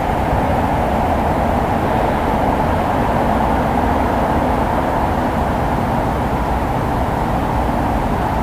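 Steady heavy rainfall, a dense even hiss with a deep low rumble beneath it and no distinct thunderclap.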